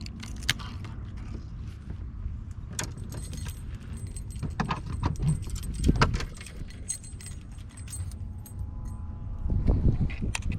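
Rattling and clicking of small hard objects being handled, a jangle like keys, over a steady low rumble.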